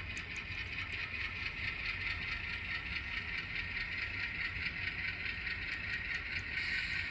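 HO scale Atlas ALCO RS3 model diesel locomotive running slowly along the track: a steady mechanical hum with many faint clicks.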